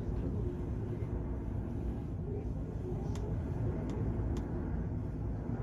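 Steady low rumble of the car ferry Kiso under way, its engines and the sea noise blending into one even drone, with a few faint clicks in the second half.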